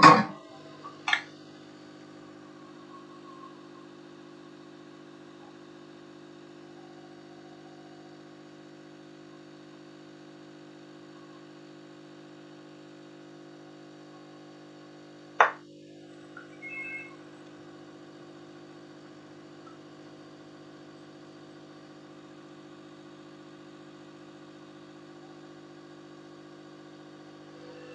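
A steady low hum of several pitches with a few sharp clicks: two near the start and one about halfway through.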